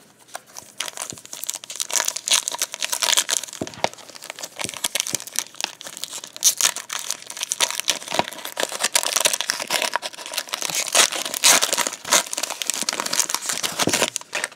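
Shiny foil wrapper of a trading card pack crinkling and tearing as hands peel it open, a dense crackle that stops just before the end.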